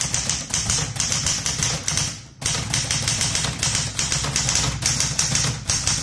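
Typing on a Smith Corona Galaxie manual portable typewriter: a rapid run of key strikes, with a brief pause a little over two seconds in.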